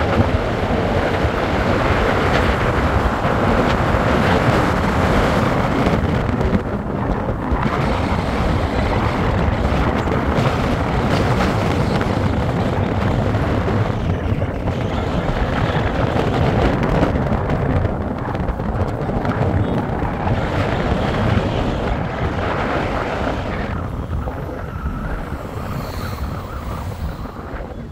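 Wind rushing over the microphone with motorcycle running and road noise while riding, a dense steady roar that eases off over the last few seconds.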